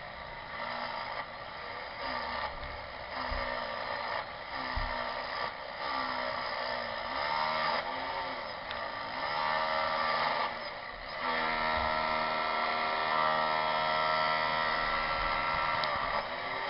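Electric drill motor running, its whine rising and falling in pitch as the speed changes. It then holds at a steady, higher speed for the last third.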